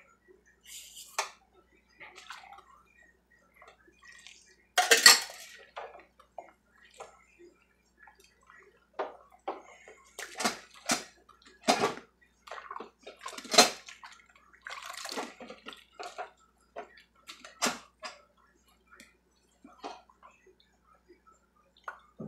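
Dishes being washed by hand in a stainless-steel sink of soapy water: irregular splashing and sloshing, with knocks and clinks of dishes and utensils. There is a loud splash about five seconds in and another a little past the middle.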